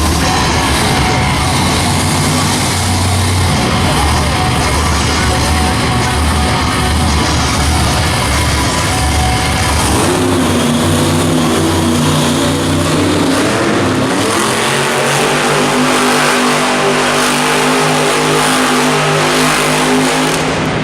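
Monster truck's engine running hard and revving: a deep rumble for about the first half, then the pitch rises about ten seconds in and holds at high revs.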